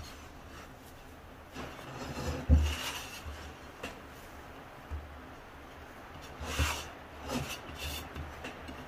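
Bread dough being mixed and squeezed by hand in a large bowl, still shaggy and not yet evenly combined: irregular rubbing and scraping of dough and hand against the bowl, with soft thumps, the loudest about two and a half seconds in.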